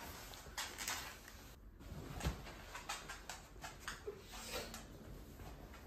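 Faint rustling with scattered soft knocks and clicks, irregular and without any steady sound.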